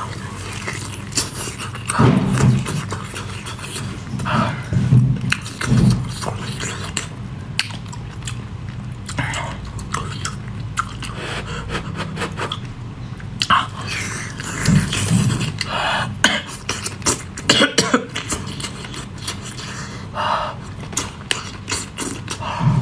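Eating sounds of a person biting, sucking and chewing whole octopus: wet mouth clicks and smacks at irregular intervals, with a few short throaty sounds in between.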